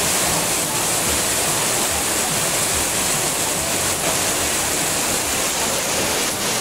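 Rain falling on and around a tent canopy: a steady, even hiss.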